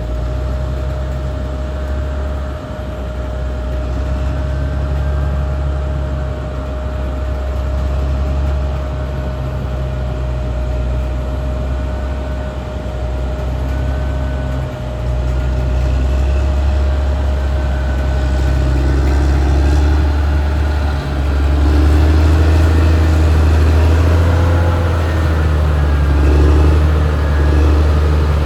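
Caterpillar D6R XL bulldozer's diesel engine running steadily at work, a deep drone with a thin steady whine over it; the engine grows louder about three-quarters of the way through as the whine fades.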